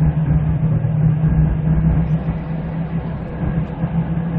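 Jeep Wrangler's 2.8-litre turbodiesel engine and tyre noise heard from inside the cabin while cruising on the highway: a steady low drone that eases off slightly toward the end.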